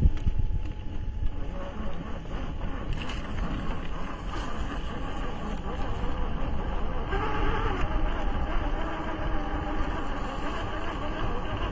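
Electric motor and gear train of a Traxxas TRX-4 Defender 1/10 scale RC crawler whining as it climbs, the pitch rising and falling with the throttle, over a steady low rumble.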